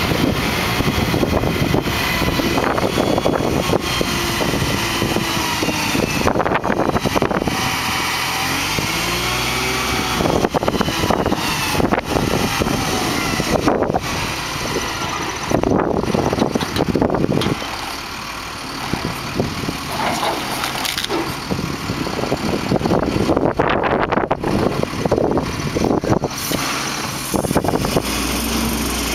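Flatbed truck's diesel engine running while it drives the hydraulic tilt bed, raising the bed so its load of wrapped lumber slides off the back. The engine's pitch rises and falls a few times early on.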